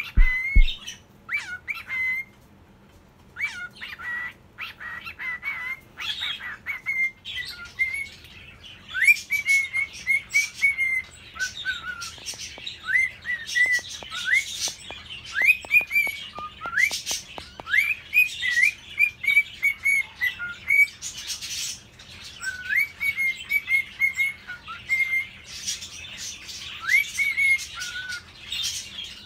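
Male normal grey cockatiel singing its courtship song: a string of whistled notes, short upward-sliding whistles and briefly held notes repeated over and over, with fainter high chirps and clicks behind.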